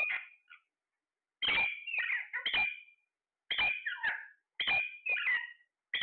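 Alexandrine parakeets calling: a run of short, harsh squawks in clusters of two or three, with brief pauses between the clusters.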